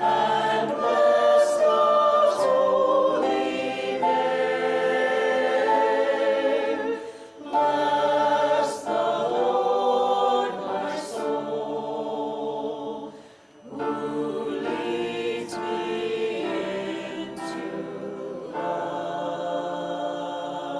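Choir singing a hymn in several parts, phrases separated by short breaths.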